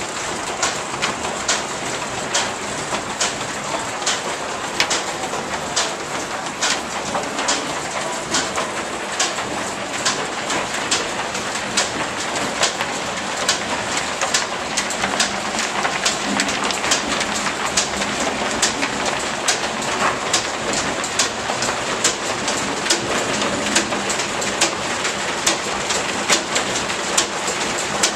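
Sawmill line shaft running under steam power, its wide flat drive belts travelling over spinning pulleys with a steady rush and regular sharp clicks about two to three times a second.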